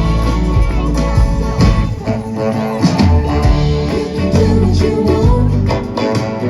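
Live band music led by guitar, with a singing voice and a steady beat.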